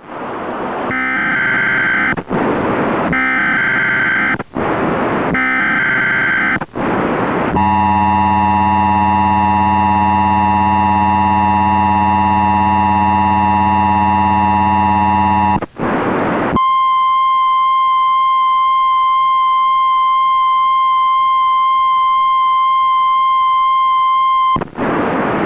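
Emergency Alert System broadcast tones. It opens with three short bursts of the SAME digital header, separated by static. Next comes about eight seconds of the harsh two-tone attention signal, then, after more static, about eight seconds of the steady 1050 Hz NOAA Weather Radio warning alarm tone, which stops abruptly into static.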